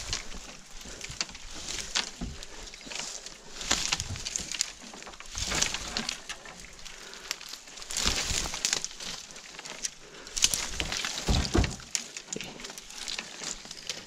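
Footsteps through dry leaves and brush on a steep slope, with twigs crackling and snapping underfoot in irregular bursts.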